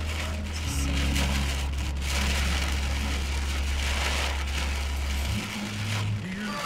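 Heavy rain beating on a moving car, with wet-road tyre hiss, heard from inside the car. Under it runs a steady low hum that shifts pitch about five seconds in and fades about a second later.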